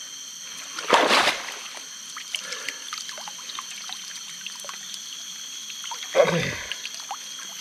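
Water splashing and trickling as a gill net is pulled up out of a river, with two louder splashes, about a second in and again near the end, and scattered drips between.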